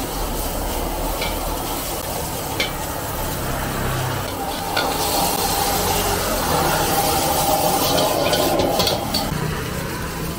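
Steel ladle stirring and scraping noodles around a hot wok, with steady sizzling from the frying food and a few sharp clinks of the ladle against the wok.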